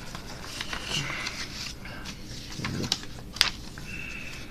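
A sheet of paper handled and folded by hand: rustling and crinkling with scattered sharp crackles, the sharpest about three and a half seconds in.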